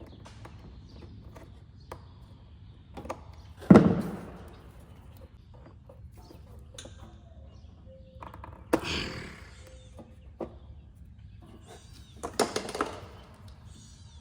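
Knocks and clatters of tools and parts being handled during mower work: a sharp knock about four seconds in, the loudest, then two more clattering knocks around nine and twelve seconds in, with small clicks between.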